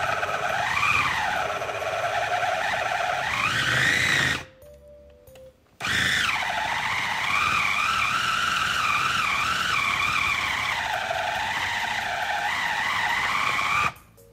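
Red KitchenAid mini food chopper running as it churns a thick apple cookie dough, its motor whine wavering up and down in pitch with the load. The motor stops for a moment about four seconds in, starts again with a brief jump in pitch, and cuts off near the end.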